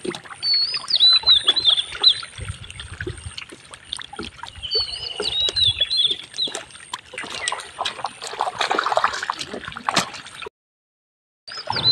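Wet splashing and squelching of hands working through shallow water and mud, with many small splats and clicks. A bird twitters a short chirping phrase twice in the first half, and the sound cuts out briefly near the end.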